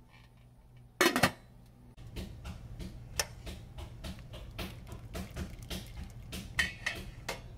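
A sharp metallic clank about a second in, then steady clock-like ticking, about three ticks a second, over a low hum.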